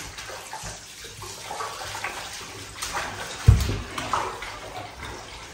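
Bath tap running into a bathtub of soapy water, splashing steadily, with a sudden loud thump about three and a half seconds in.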